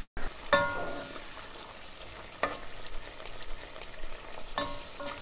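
Food sizzling in a frying pan, with a few metallic clinks of a utensil against the pan.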